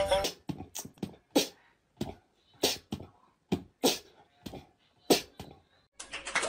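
A corgi giving a run of short, sharp huffs, roughly two a second with silence between them. Music cuts back in near the end.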